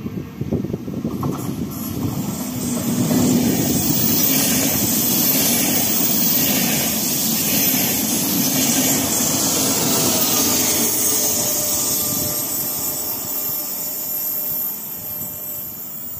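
Double-deck electric regional passenger train passing through a station at speed. The rush of wheels on rails and air builds over the first few seconds, stays loud for about eight seconds as the coaches go by, then fades.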